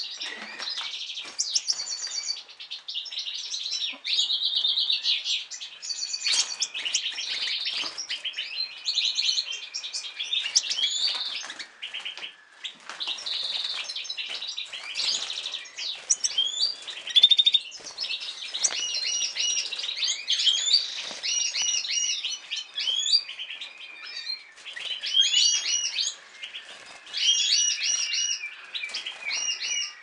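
Several caged goldfinches and canaries singing at once, an unbroken tangle of rapid trills and repeated chirping phrases.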